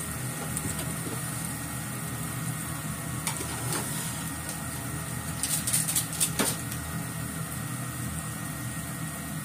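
Teriyaki sauce simmering and bubbling around chicken pieces in a frying pan, with a few sharp crackles and pops, most of them from about five to six and a half seconds in. A steady low hum runs under it throughout.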